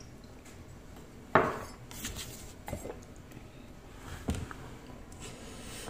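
Tableware clattering on a wooden table: one sharp knock about a second and a half in, then a few lighter clinks.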